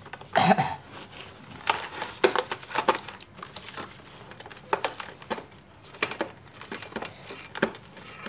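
Brass incense burner being scrubbed by hand in a plastic basin with salt and vinegar: irregular scratchy rubbing with many short clinks and knocks of the brass against the basin, the loudest a knock about half a second in.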